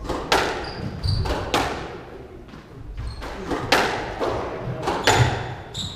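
Squash rally: the ball cracking off the rackets and smacking the front and side walls in quick succession, each hit echoing in the hard-walled court. Short high squeaks of court shoes on the wooden floor come in twice, about a second in and near the end.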